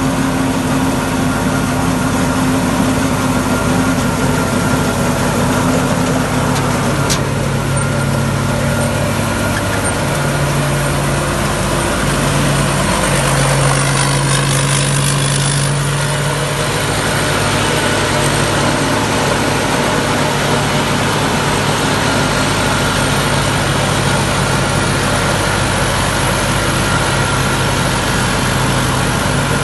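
Rice combine harvester engine running steadily, its pitch shifting slightly about halfway through.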